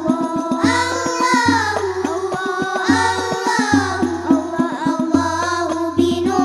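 Children singing sholawat in the Al Banjari style, several voices together in a flowing melody, over rebana frame drums struck in a fast, dense rhythm, heard through a PA.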